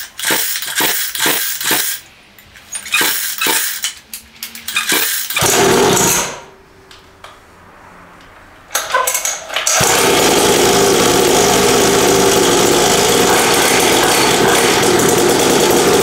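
A new 50 cc two-stroke mini dirt bike engine being pull-started for the first time. Several quick pulls on the recoil starter come first, then a brief catch about five seconds in that dies away. It finally starts about ten seconds in and runs steadily.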